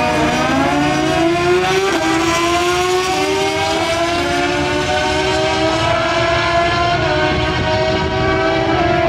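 Two litre-class sportbikes, one a Suzuki GSX-R1000 with an inline-four engine, at full throttle down a drag strip from the launch. The engine note climbs in pitch and dips briefly at each upshift, about four times through the run.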